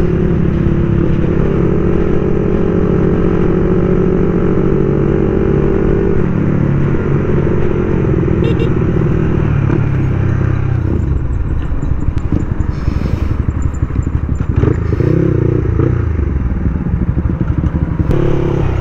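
Motorcycle engine running at a steady road speed; about six seconds in, the engine note drops and it runs lower and less evenly as the bike slows.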